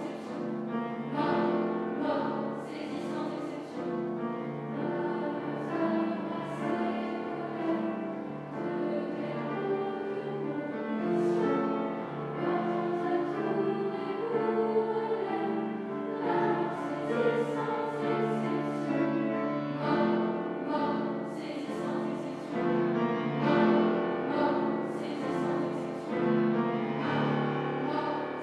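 Children's choir singing with grand piano accompaniment.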